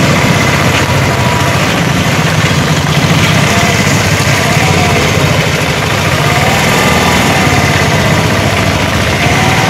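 Autorickshaw's small engine running steadily at low speed, a continuous low rumble. A motorcycle passes close by near the end.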